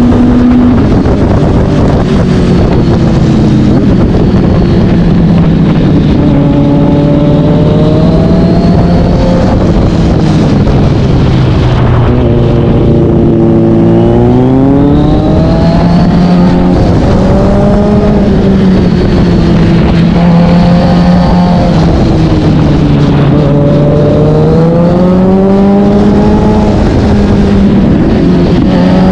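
Kawasaki Z900 inline-four breathing through an aftermarket SC-Project S1 exhaust, heard onboard while riding. The revs rise and fall repeatedly as the bike accelerates and slows, over a steady rush of wind on the microphone.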